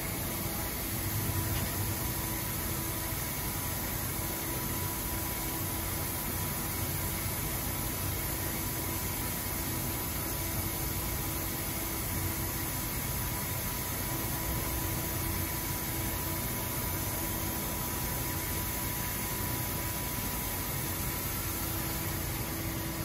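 Steady hum and whir of a powered-up CNC turn-mill centre, a DMG Mori CTX beta 1250TC, running at an even level with a couple of faint steady tones over a constant hiss.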